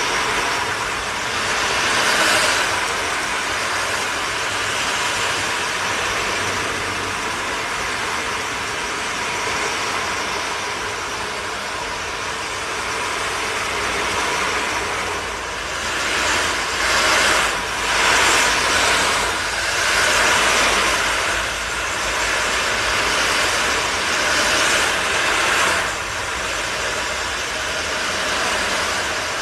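Two 22-inch ocean drums being tilted, the round beads inside rolling across the drumheads in a continuous wash like ocean waves, with a string of louder swells in the second half.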